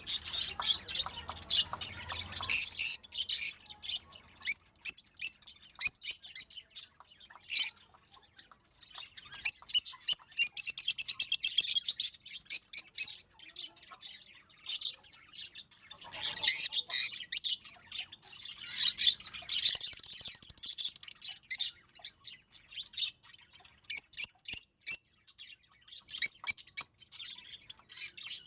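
Peach-faced lovebirds chirping and squeaking in short, high bursts, with two longer runs of rapid, high chattering about ten and twenty seconds in.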